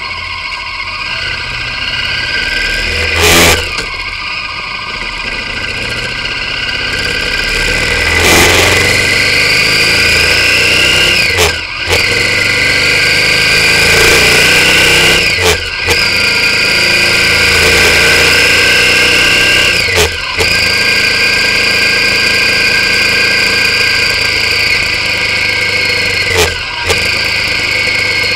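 V-twin motorcycle engine pulling through the gears, heard from an action camera mounted on the bike. The engine note climbs, then drops with a brief dip at each of four upshifts, over a steady rush of wind and road noise. A loud knock comes about three seconds in, and another about eight seconds in.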